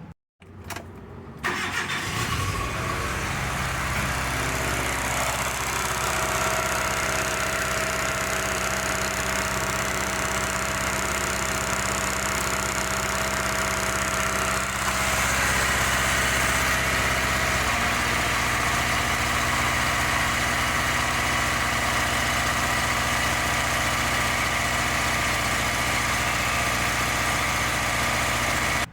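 Car engine of a 2005 Hyundai Matrix running steadily at idle, coming in abruptly about a second and a half in, with its tone shifting about halfway through. The engine has a misfiring cylinder that has lost compression through worn piston rings.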